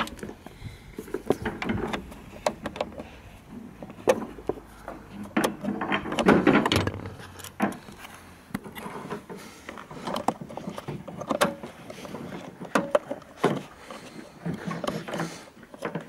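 Hands working the door wiring connector and its rubber harness boot in a VW Golf 5 door jamb: irregular plastic clicks, knocks and rubbing of rubber and plastic, with a denser stretch of rubbing about six seconds in.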